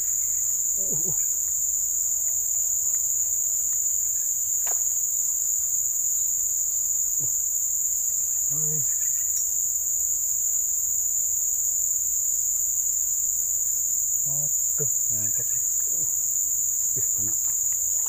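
A steady, high-pitched insect chorus drones without a break, pitched in two high bands, with a few brief faint low sounds and a single click in the background.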